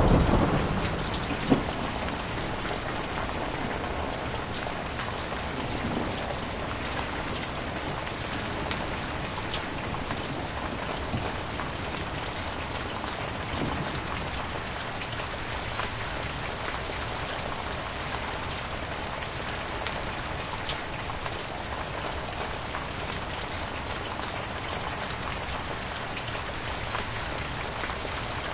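Heavy rain falling steadily: a dense, even patter with scattered sharper drops. A thunderclap that peaked just before fades out in the first second or two.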